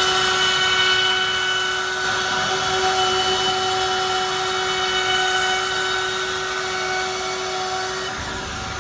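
Table-mounted wood router running at speed, its bit cutting along the edge of an MDF box: a steady high whine over the rasping noise of the cut. The whine stops shortly before the end.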